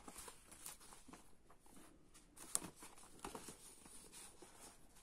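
Magazine pages being leafed through and handled: faint paper rustling and soft page flaps, with one sharper snap about two and a half seconds in.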